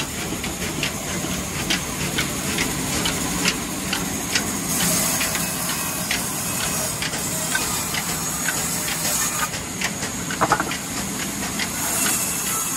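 Old diesel oil engine driving a wood-cutting band saw through a long flat belt: steady mechanical running with irregular clicks and knocks, and a brighter hiss now and then as the blade cuts through a log.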